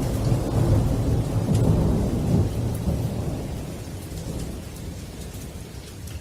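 Thunder rumbling low over steady rain, slowly fading out and cutting off right at the end.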